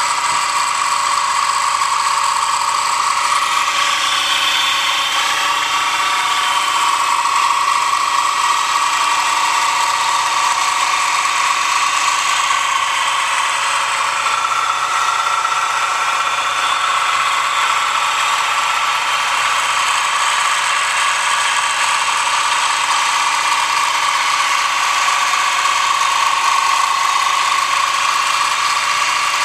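Milling machine running steadily with a shop-made cutter cutting cog-belt teeth into a wheel blank, a constant high whine over a metallic cutting hiss.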